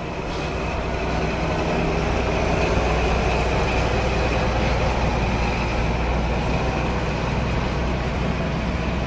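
Dubbed railway sound effect: a train running with a steady low drone and rumble. It swells over the first two seconds or so, then holds steady.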